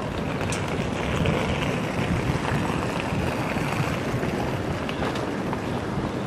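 Diesel multiple unit train approaching slowly, its engine running as a steady low rumble, with wind on the microphone.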